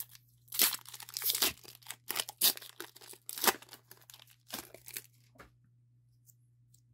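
Foil wrapper of a Pokémon trading-card booster pack being torn open and crinkled as the cards are slid out: a run of sharp crackling rustles that stops about five and a half seconds in.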